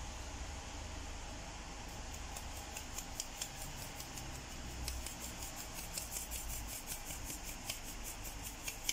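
Metal hand sieve being shaken over a plastic bowl to sift dry cake ingredients, giving a rhythmic rattle of light ticks several times a second. It starts about two seconds in and grows denser toward the end.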